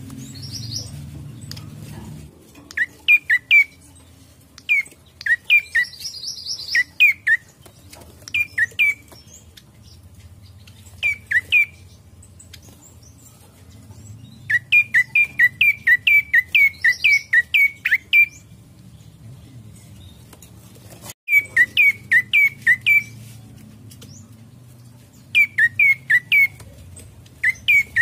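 Prenjak coki calling: sharp, high chirps in quick runs of three to a dozen notes, the longest run lasting about three seconds, with short pauses between runs. A brief higher buzzy trill comes twice in the first seconds.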